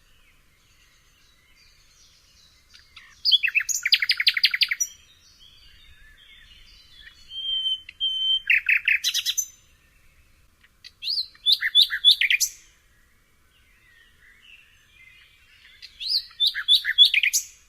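Nightingale singing: four short phrases of rapid repeated notes and trills, a few seconds apart, one of them with a pure whistled note held for about a second.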